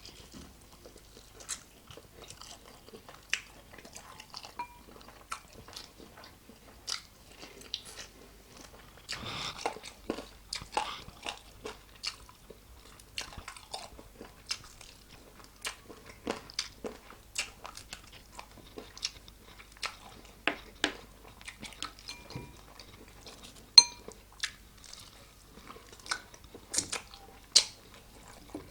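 A person biting and chewing homemade chicken wings close to the microphone: a string of irregular sharp, crisp crunches, with a denser run of chewing about nine seconds in.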